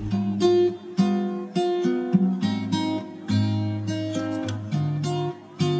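Background music: a plucked acoustic guitar playing a simple, light melody, about two notes a second.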